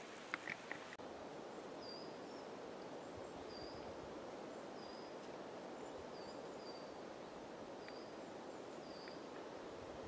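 A steady, faint rustling hiss of a pine forest. A small bird repeats a short, high chirp about once a second, and a few clicks come near the start.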